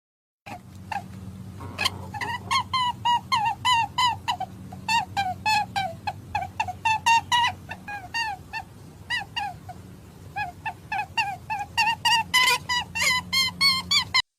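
An animal calling over and over in short yelps, each rising and falling in pitch, about two to four a second, over a steady low hum.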